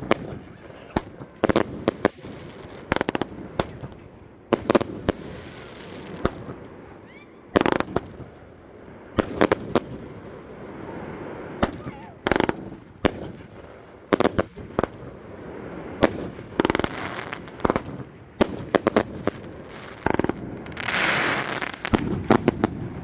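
Consumer fireworks going off: a string of sharp bangs from launches and bursts, coming at irregular intervals. Near the end a denser rush of noise lasts about a second and a half.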